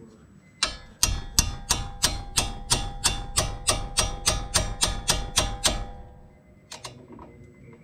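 Hammer striking a box-end wrench on a bolt at the front brake: about sixteen sharp metallic blows, roughly three a second, each ringing, then two quick taps near the end. The wrench is being driven to tighten the bolt during reassembly.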